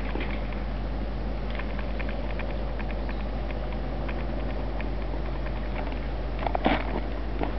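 Miniature railway train running on its track: a steady rumble with many small, irregular clicks and knocks, and a louder cluster of knocks a little before the end.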